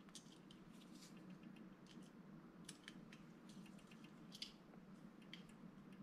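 Near silence, with faint scattered clicks as tiny screws are fitted and turned into the base of a small diecast toy car.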